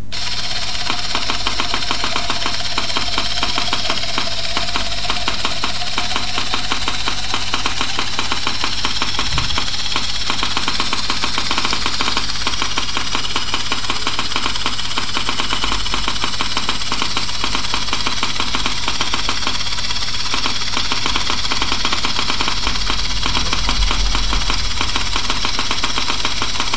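3Shape TRIOS intraoral scanner wand running during a live scan in the mouth, with a steady, rapid mechanical rattle that holds even throughout.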